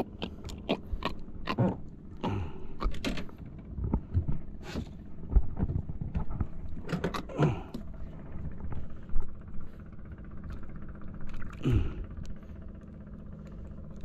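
Irregular knocks and scrapes of a fish held in a lip grip being handled against the side of a small boat, over a steady low hum.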